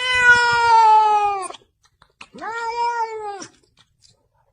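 A cat meowing twice: a long call that slowly falls in pitch, then a shorter call that rises and falls.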